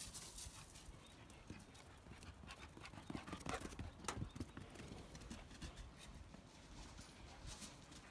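A rottweiler's paws thudding on dirt and grass as it runs, a faint, irregular run of footfalls that is loudest about three and a half to four seconds in, as the dog passes close by.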